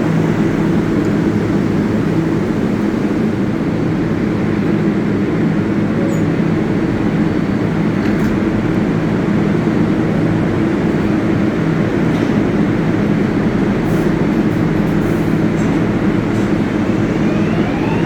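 Subway train in the station: a steady, loud rumbling hum, with a rising electric whine starting near the end.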